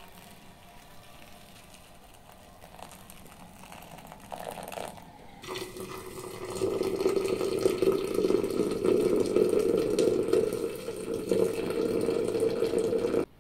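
Water poured from a kettle: first a faint stream onto a bowl of dry rolled oats, then, after a cut about five seconds in, a louder steady stream splashing into a tall glass jar of herb leaves, which cuts off suddenly near the end.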